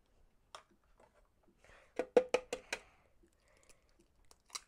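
Five quick hard knocks against the plastic food-processor bowl, about a fifth of a second apart, with a single fainter knock shortly before and another near the end.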